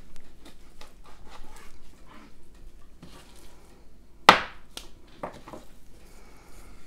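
Knife cutting through raw pork spare ribs on a cutting board: small scrapes and clicks of the blade, then a sharp knock against the board about four seconds in, followed by a few lighter knocks.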